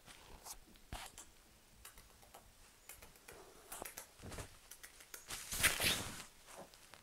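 Siberian kitten scrambling and pouncing on a bed, its paws and claws rustling and scratching the duvet in scattered short bursts, with a longer, louder rustle near the end.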